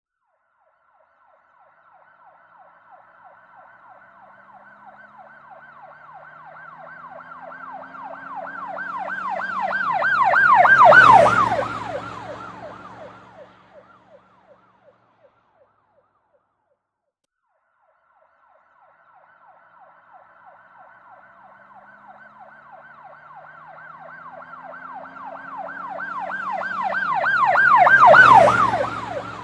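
Police car siren in a fast up-and-down yelp, growing louder as the car approaches, then dropping in pitch as it passes and fading away, with engine and tyre noise at the moment of passing. A few seconds of quiet follow, then a second identical pass builds and peaks near the end.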